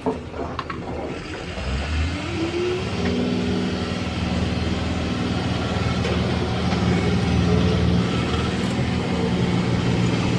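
Heavy diesel engine revving up over about a second and a half, then running steadily at high revs under load.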